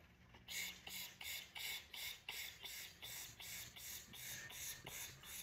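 A man breathing in through pursed, crow-beak lips in rapid short sips of air, a faint hiss about three times a second: crow-beak pranayama breathing.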